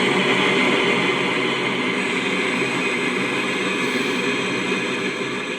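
Portable Bluetooth pill speaker in FM radio mode, playing loud, steady static hiss from an untuned frequency, easing slightly in level.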